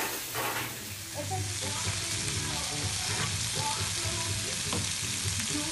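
Meat and chicken sizzling in a Korean barbecue grill pan: a steady frying hiss, with faint voices in the background.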